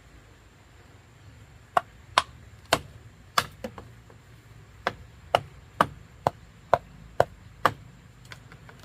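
A run of sharp blows, about two a second: five strikes, a short pause, then seven more evenly spaced.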